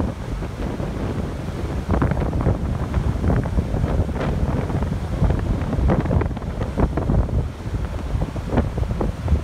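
Strong, gusty wind from Hurricane Florence buffeting the microphone: a constant low rumble with irregular louder gusts.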